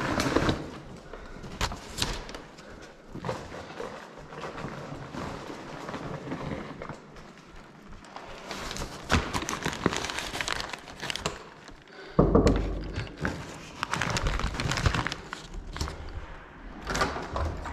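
Handling noise from a courier's insulated delivery backpack being opened and rummaged through: fabric rustling with irregular clicks and knocks. About twelve seconds in, a heavier rubbing rumble sets in with a few knocks.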